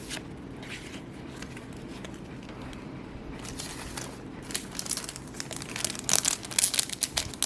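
Foil Yu-Gi-Oh! booster pack being handled and torn open, its wrapper crinkling. The crinkling starts about halfway through and gets louder and busier toward the end.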